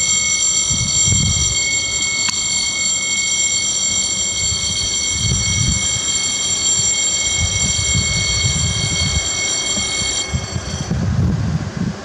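French level-crossing warning bell ringing, a steady electronic ring with several high tones, warning of an approaching train while the half barriers lower. It cuts off suddenly near the end, once the barriers are nearly down.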